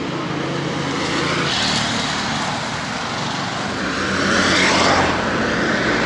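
Road traffic on a town street: engines running and tyre noise, with vehicles passing, the loudest going by about four to five seconds in.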